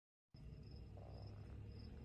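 After a moment of dead silence, faint crickets chirping in high, regular pulses, a few a second, over a low steady hum.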